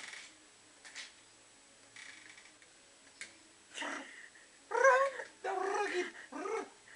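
A man's voice making drawn-out, wordless noises close to the microphone: several separate calls that bend up and down in pitch, starting about two-thirds of the way in, after a few faint clicks.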